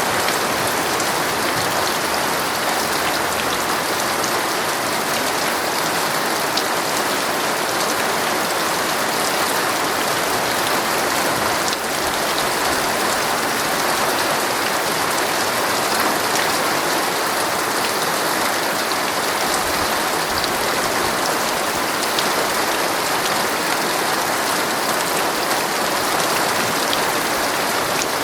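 Heavy rain drumming steadily on a tent's fabric, a dense even patter with scattered small drop ticks.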